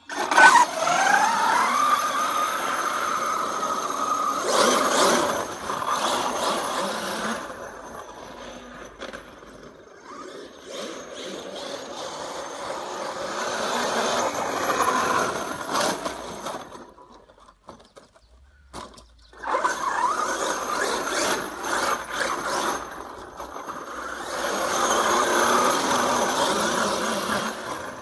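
Losi 5ive-T 1/5-scale RC truck with a Castle 2028 brushless motor on 8S, its motor and gears whining as it launches hard, the pitch rising over the first second or two. The whine then swells and fades as the truck is driven around over wet soil, almost dropping out for a moment past the middle before coming back loud.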